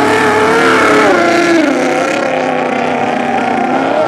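Two-stroke racing outboard engines of several 750cc modified runabouts running at race speed as the boats pass close by, their notes dropping in pitch about a second and a half in.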